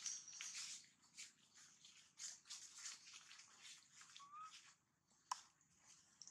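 Near silence with faint rustling and crackling from a mother and baby macaque moving and grooming on a tree root. A short faint rising squeak comes about four seconds in and a single sharp click about a second later.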